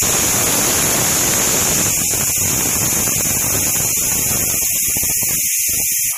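Aluminium stovetop pressure cooker whistling: steam lifts the weight on the vent and rushes out in a loud, steady hiss, the sign that the cooker has reached full pressure. It stops abruptly at the end.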